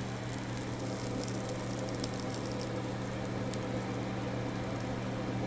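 Butter and steak juices sizzling and crackling softly in a hot skillet, over a steady low hum.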